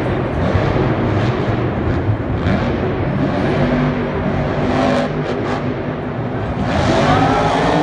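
Scooby-Doo monster truck's engine running and revving hard through a freestyle run, heard from the stands of a domed stadium.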